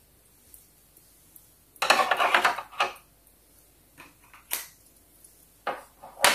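Small plastic toy furniture pieces clattering and clicking as they are handled and set down on a plastic playset floor: a rattling burst about two seconds in, then a few separate light clicks near the end as a toy weighing scale is placed.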